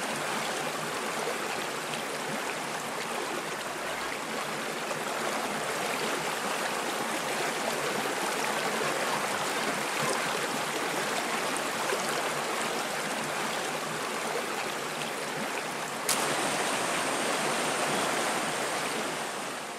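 Shallow forest stream flowing over rocks: a steady rush of running water. About 16 seconds in comes one sharp click, after which the water is a little louder, and the sound starts to fade at the very end.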